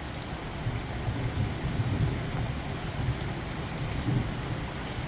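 Heavy thunderstorm rain pouring steadily, with a low rumble of thunder rolling underneath.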